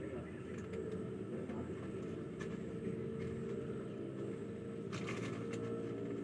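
A steady low mechanical hum, like an engine or motor running, with a brief hiss and a few faint ticks about five seconds in.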